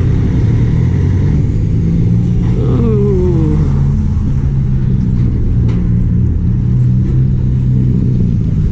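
Motor vehicle engine and road rumble while on the move, a steady low drone with a falling engine note about three seconds in.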